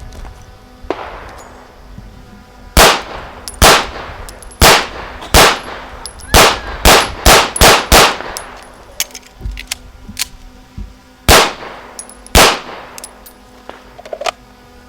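Gunshots from a firearm. Single shots come about a second apart, then a quick string of five in under two seconds, then two more a second apart near the end, each with a short echo.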